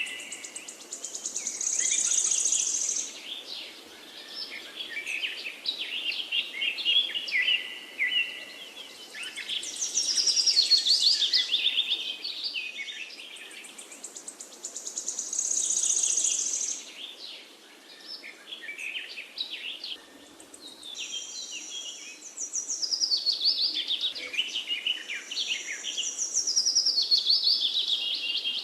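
Songbirds singing: bursts of rapid high chirps and trills come and go every few seconds over a faint steady background hiss.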